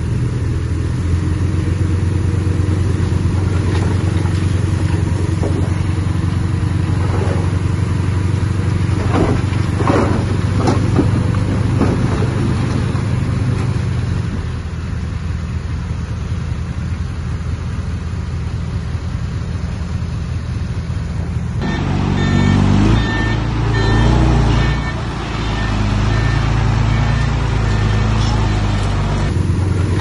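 Diesel engines of heavy earthmoving machinery running steadily, with a few sharp metallic clanks about ten seconds in. About two-thirds of the way through the sound changes abruptly, and for a few seconds the engine is louder and rises and falls.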